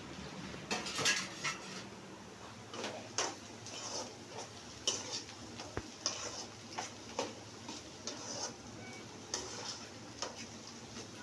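Spoon stirring food in a cooking pot: a dozen or so irregular scrapes and clinks of the spoon against the pot, over a faint sizzle.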